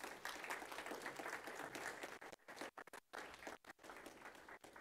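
Audience applauding, the clapping dense at first and thinning out about halfway through.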